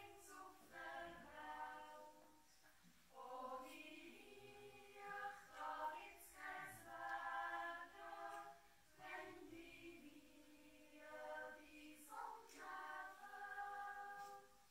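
Swiss children's yodel choir singing a cappella, in sung phrases with brief pauses between them.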